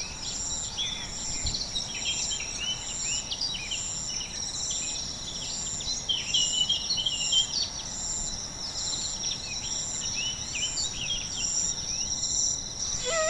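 Birds chirping in many short calls over a high insect trill that pulses about once a second.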